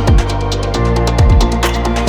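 Background electronic music with a fast, steady beat, punchy kick drums and bass.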